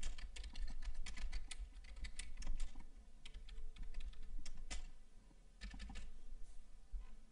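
Typing on a computer keyboard: runs of quick keystrokes, with a short pause about five seconds in and only a few keys near the end.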